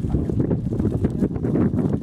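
Wind buffeting the microphone on an exposed ridge: a steady low rumble that rises and falls in gusts.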